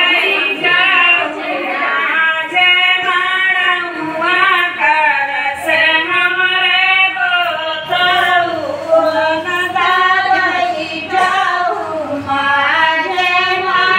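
A group of women singing a devotional song together, their voices carrying one melody line.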